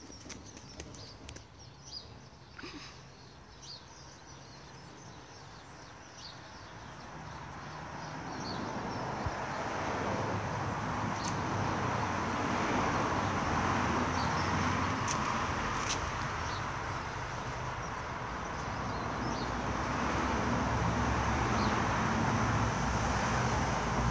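A bin lorry's engine and tyres growing louder as it comes down the road, building from about a third of the way in and staying loud to the end, with birds chirping throughout.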